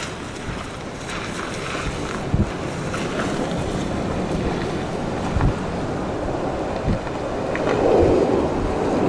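Strong gusty wind buffeting the microphone, a steady rushing with scattered low thumps, growing louder near the end.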